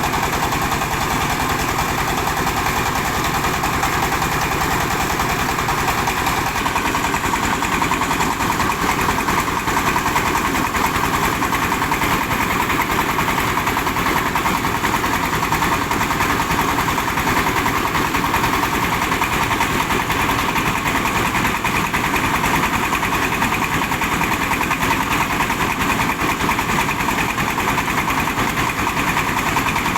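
Mobile rice huller running steadily, its diesel engine going at a constant speed with a fast, even pulse.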